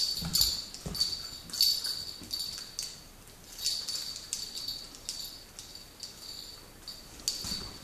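A puppy's claws clicking irregularly on a hard floor as it moves about, with a light metallic jingle from its collar.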